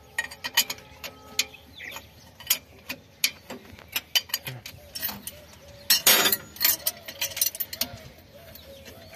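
Spanner and metal fittings clicking and clinking as a mechanic works a fitting on a tractor's engine housing. Irregular sharp clicks throughout, with a short louder rasp about six seconds in.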